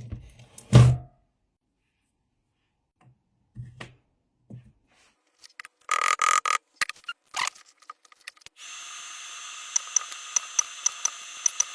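Battery-pack parts and tools handled on a workbench: a few soft knocks, a short clatter and more knocks. Then running equipment sets in with a steady electrical hum, joined by a quick run of sharp clicks, about three a second.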